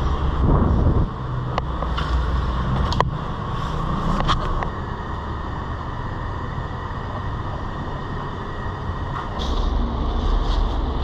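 Steady low rumble in an underground parking garage, with a few sharp clicks and knocks as a bicycle is parked at a rack. Plastic bag rustling near the end.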